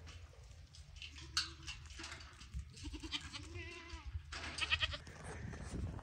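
Goats bleating, several short wavering calls with the loudest near the end, over a steady low rumble.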